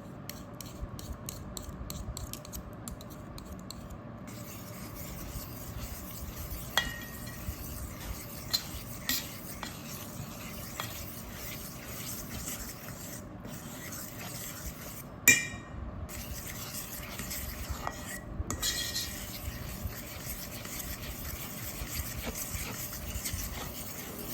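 Sourdough pancake batter being stirred in a bowl with a utensil: a steady scraping and rubbing, with scattered light clinks of the utensil against the bowl, the loudest about fifteen seconds in. The baking soda is being mixed into the batter.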